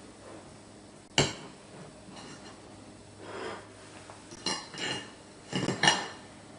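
Tableware clinking and knocking: one sharp knock about a second in, then a few quick ringing clinks near the end.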